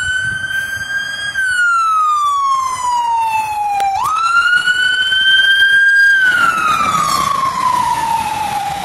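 Fire engine siren wailing as the truck passes: twice the tone sweeps up quickly, holds high, then falls slowly.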